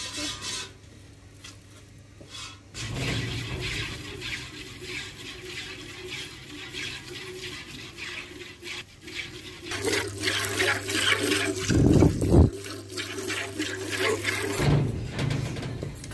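Water buffalo being hand-milked into a steel bucket: rapid, rhythmic squirts of milk hissing into the pail, starting about three seconds in and growing stronger later on. A brief low rumble about twelve seconds in.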